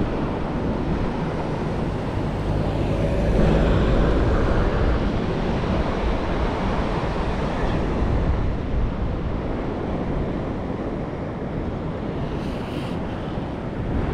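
Ocean surf washing on the shore, with wind buffeting the microphone. The rush swells louder about three and a half seconds in, then settles back.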